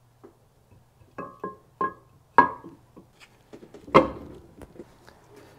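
Aluminium lower crankcase of a Chevy 2.2 Ecotec engine being set down onto the block: a series of metal knocks, each with a short ring, the loudest about four seconds in as it seats.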